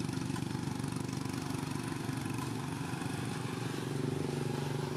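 A small engine running steadily at idle, its pitch shifting slightly about four seconds in.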